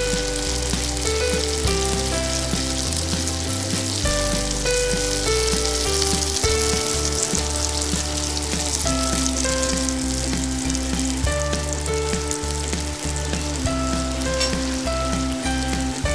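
Chopped garlic and onion sizzling steadily as they fry in oil in a nonstick pan, stirred with a silicone spatula. A melodic background music track plays under the sizzle.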